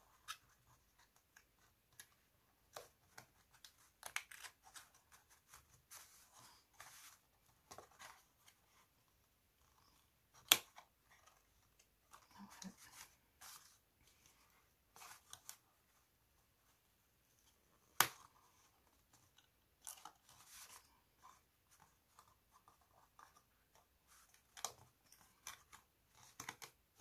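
Quiet handling of cardstock as it is folded, tucked and pressed together: scattered short papery rustles and crinkles. Two sharp clicks, the loudest sounds, come a little past a third of the way through and again about two-thirds through.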